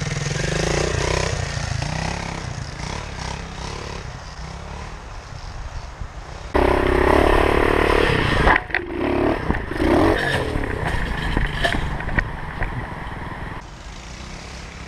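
Pit bike engines revving as the bikes ride a dirt track. About six and a half seconds in, the engine sound jumps suddenly louder and closer, heard from on board a bike. Near the end it drops back to a more distant engine.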